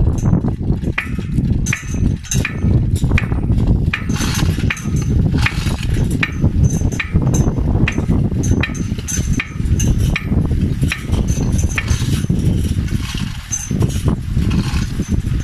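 Irregular metallic clicking and clinking, about one or two a second, from a hand chain hoist and steel fittings as a motorized valve actuator is worked into place on a pipeline valve. A steady low rumble runs underneath.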